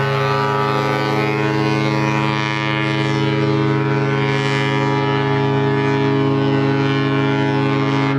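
Ship's horn sounding one long, deep, steady blast that stops near the end.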